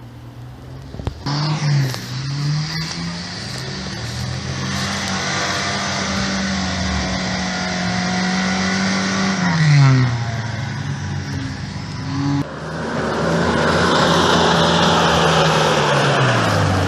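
4x4 engine revving hard under load, held at high revs for several seconds. It drops off about ten seconds in, climbs again, and drops near the end.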